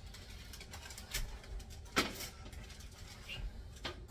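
Metal baking sheet knocking against the oven rack as it is slid into an open oven: a few scattered clicks, the sharpest about two seconds in.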